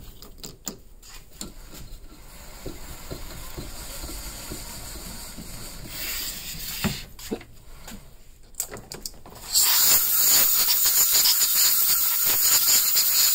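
Small lathe running with the pool cue's joint end spinning in its chuck; about ten seconds in, a loud steady hiss starts as a hand-held tool is put to the spinning brass joint end.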